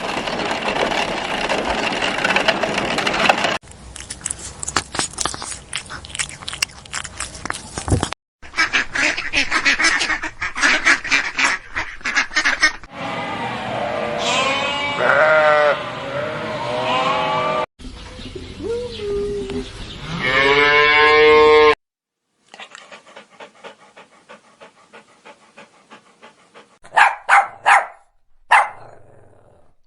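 A run of separate animal-call recordings cut one after another, about six in all, each ending abruptly. Several hold long wavering pitched calls in the middle. The last is quieter, with a few short loud calls near the end.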